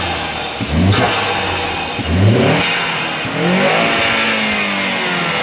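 Ford 2.3-litre EcoBoost turbocharged four-cylinder engine revved: two quick blips, then a longer rev whose pitch falls away slowly. A rushing whistle of the turbo rides over the revs.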